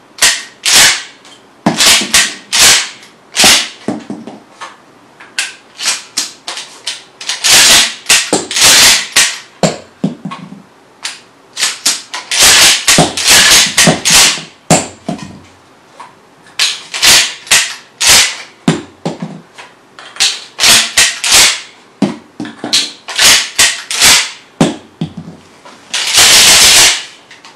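Mossberg 500 pump-action shotgun being worked in dry-fire practice: the forend racked back and forth over and over, giving loud metallic clacks and clicks in quick clusters, with a longer clatter near the end.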